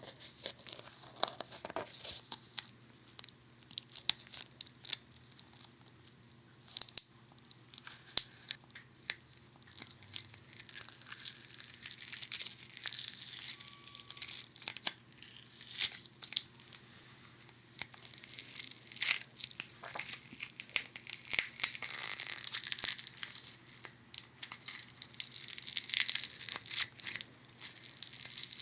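Funny Foam squished against a binaural dummy head's ear microphones, crackling and popping in many small clicks. The clicks are sparse at first and turn into a dense fizzing crackle about two-thirds of the way through.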